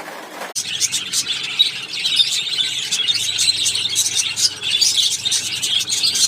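Many small birds chirping and squeaking at once in a dense, continuous chatter, starting abruptly about half a second in.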